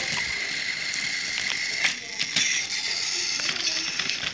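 Battery-powered toy train (a Toby the tram engine model) running on plastic track: its small gear motor whirs with a steady high whine, with repeated clicks and clatter from the wheels on the track and points.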